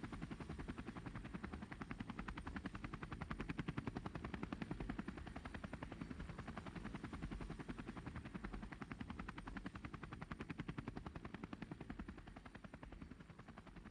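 Rotor blades chopping in a rapid, steady beat, fading out near the end.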